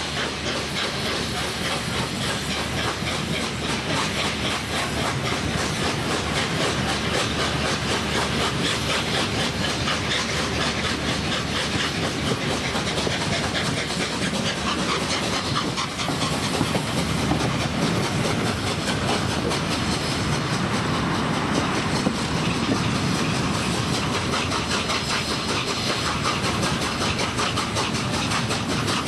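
Peppercorn A1 Pacific steam locomotive 60163 Tornado, a three-cylinder engine, running under way: a rapid, even exhaust beat over the hiss of steam, with the train's wheels clattering over the rail joints.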